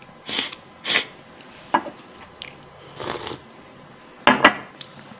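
Eating noises from a man eating Wai Wai instant noodles close to the microphone: a few short airy slurps and sharp mouth clicks, spaced apart, with a pair of crisp clicks about four seconds in.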